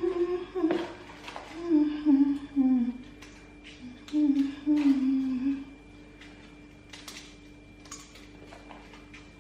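A woman humming a tune in a few short phrases, the melody stopping about six seconds in; after that, a few light clicks and knocks of kitchen things being handled.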